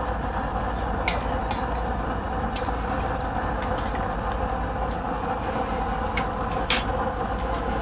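Pot of tilapia in coconut milk simmering on the stove: a steady hiss with a few short sharp clicks, the loudest one a little before the end.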